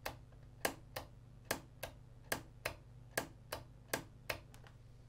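Small trigger spark in a Pulse Photonics Palflash 500 air-gap flash unit snapping across its electrode, sharp clicks in close pairs a little more than once a second. Only the trigger spark fires; the unit is not working as a flash.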